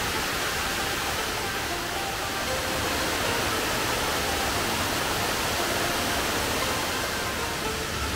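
Steady rushing of a waterfall, a continuous roar of falling water.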